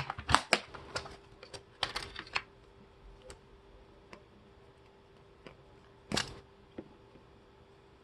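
Small hard clicks and taps of lockpicking tools and lock parts being handled on a work surface. They come in a quick run for about two and a half seconds, then a few faint ticks, then one louder knock about six seconds in.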